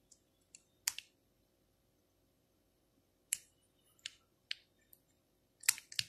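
Scattered small clicks and taps, about eight of them, from hands handling jumper wires on a plastic breadboard and a joystick module.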